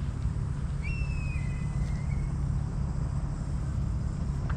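Steady low outdoor rumble, with a single thin, high-pitched call about a second in that holds for about a second and a half and steps down in pitch at the end.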